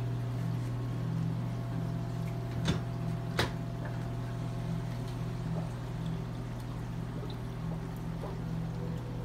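Saltwater aquarium's pumps humming steadily with water flowing and trickling, and two short sharp clicks a little under a second apart, about three seconds in.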